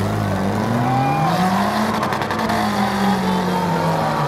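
Demolition derby car engine revving hard under load as it pushes against another car. The pitch climbs over the first two seconds, holds high, then drops away near the end, with a brief clatter of knocks about two seconds in.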